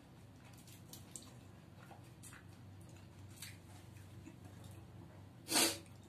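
Mouth sounds of eating drumstick curry by hand: faint wet smacks and sucking clicks while chewing, then one short, loud breathy noise near the end.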